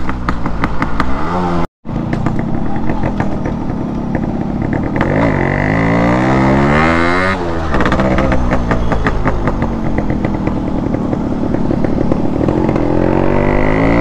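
Yamaha RX100's small single-cylinder two-stroke engine running on the move, its pitch rising and falling as the throttle is opened and closed, with a climb in revs that drops off sharply about seven seconds in. The sound cuts out for an instant just before two seconds in.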